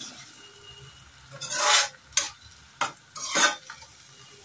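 Slotted metal spatula scraping and stirring thick masala paste in an iron kadhai as the spices fry: four scrapes across the pan in the second half, over a faint sizzle.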